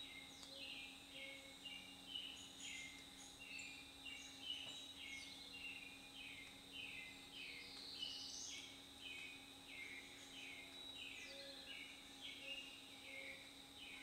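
Faint woodland birdsong: short high notes repeated about twice a second, with a thin steady high tone behind them.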